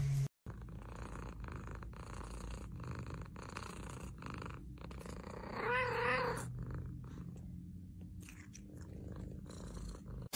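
Domestic cat purring steadily, with one short wavering meow about six seconds in.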